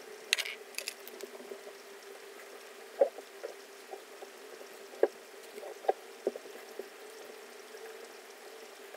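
Handling noise from applying foundation with a damp makeup sponge and cushion puff: scattered soft wet taps and a few sharp clicks, loudest about three and five seconds in, over a faint steady hum.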